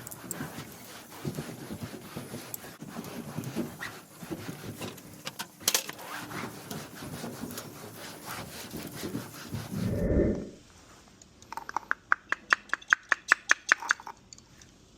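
Irregular rubbing and scraping against a hard surface, with scattered clicks, ending in a heavy thump about ten seconds in; then a quick, even run of sharp ticks for a couple of seconds.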